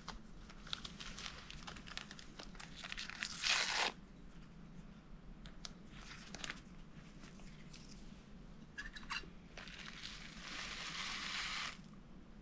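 Close rustling and crinkling of something being handled, with scattered clicks, in two stretches: the first builds to a short loud burst about three and a half seconds in, the second comes near the end.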